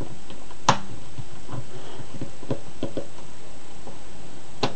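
Mechanism of an opened uPVC door lock gearbox being worked by hand, its metal parts clicking as the rods are driven in and out. There is a sharp click about a second in, a run of lighter ticks, and another sharp click near the end.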